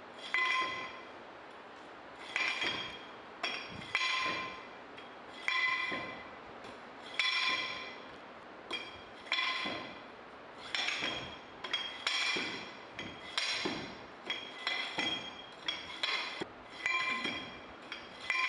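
A 2.6 kg compaction rammer dropped again and again inside its steel guide onto moist soil in a metal permeameter mould, each blow a ringing metallic clank. The blows come irregularly at first, then quicker, about one a second, in the second half: the soil sample being compacted in layers of 25 blows.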